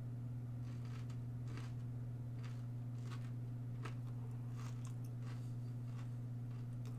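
A person chewing crunchy breaded vegan chicken-free southern fried strips: faint, irregular crunches about once or twice a second. A steady low hum runs underneath.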